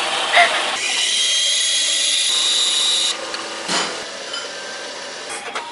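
Espresso machine steam wand hissing as milk is steamed for a latte, the hiss turning higher with a steady whistling tone about a second in and cutting off about three seconds in, followed by a short knock.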